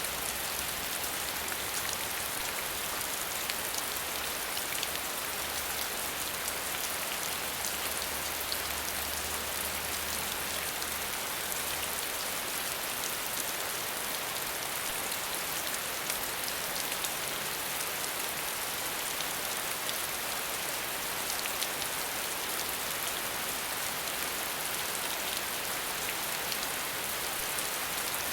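Falling water hissing and splashing steadily, a dense even wash of fine droplet ticks with no change in level.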